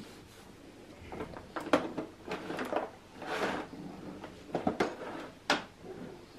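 Hard plastic clicking, knocking and scraping as a Cybex Cloud Z infant car seat is lifted off its ISOFIX base and the base is handled and turned around. There are several sharp knocks, the loudest about two seconds in and again near the end, among rustling.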